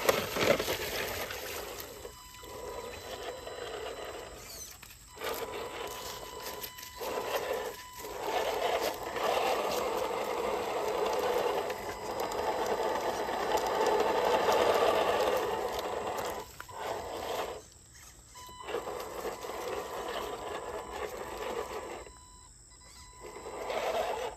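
Radio-controlled Toyota pickup rock crawler's electric motor and gears whirring as it crawls over rocks, the whir stopping and starting again several times.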